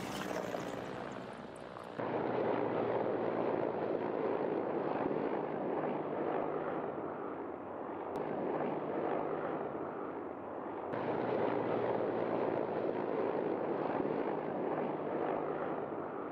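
Mi-8 military transport helicopters flying low overhead: a steady rush of rotor and turbine noise, with abrupt changes about two seconds in and again around eleven seconds.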